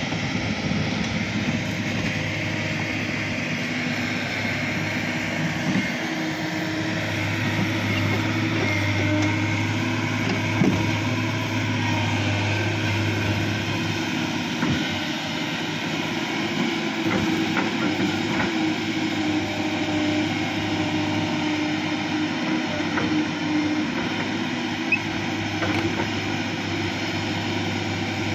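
Kobelco hydraulic excavator's diesel engine running steadily under working load, its drone swelling for several seconds partway through, with scattered knocks and cracks of the bucket against wood and soil and one sharper knock about ten seconds in.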